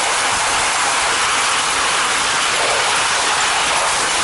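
Steel runners of a kicksled gliding over packed snow and ice, a steady scraping hiss while dogs pull it along.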